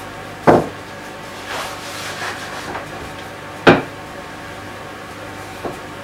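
Wooden rolling pin rolling out pastry on a floured board, with two sharp knocks about three seconds apart as the pin comes down on the board, and softer rolling scuffs between them.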